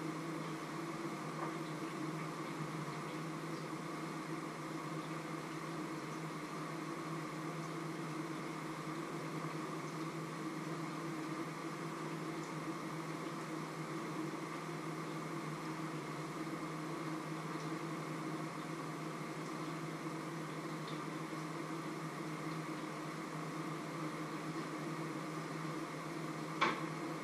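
A steady machine-like hum with a few fixed pitches, and a single sharp metallic clank near the end as a pan lid is lifted off a frying pan.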